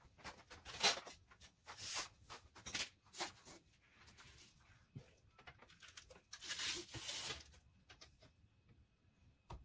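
Hands handling parts at the back of a lathe bed: irregular rustling and scraping in short bursts, with a sharp click near the end.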